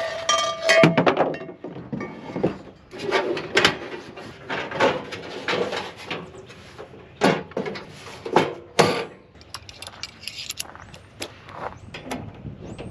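Gear being handled and set down: an irregular run of knocks, clunks and clinks, with a brief metallic ring near the start.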